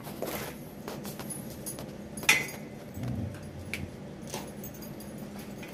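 Lycan Shepherd puppies gnawing on raw deer leg bones: scattered clicks and scrapes of teeth on bone, with one sharper click a little over two seconds in.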